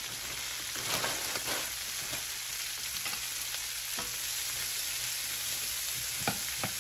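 Shredded cabbage coleslaw mix sizzling in melted butter in a stainless steel skillet, with a steady frying hiss and a few light knocks as it is tossed and stirred with a wooden spoon.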